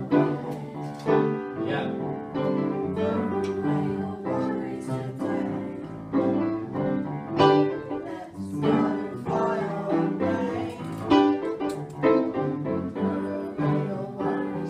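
A small group of young voices singing a song to upright piano accompaniment.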